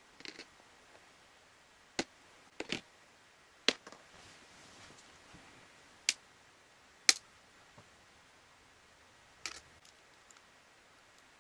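Scattered sharp clicks and taps, about seven at irregular intervals, of small hard parts or tools being handled on a workbench.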